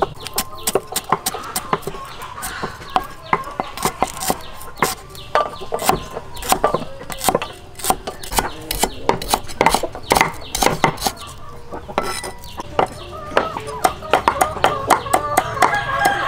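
A cleaver and knife chopping food on thick wooden chopping blocks: many quick, uneven knocks, several a second, with the blade cutting through soft cubes of congealed blood and stalks of lemongrass. Chickens cluck in the background.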